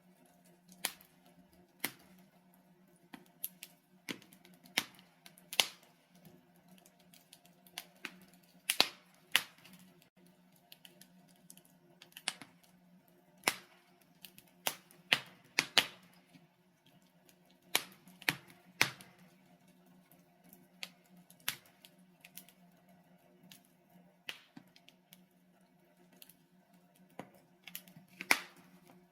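Wood logs burning in a fireplace, crackling with irregular sharp pops, one or two a second and bunched in places, over a faint steady low hum.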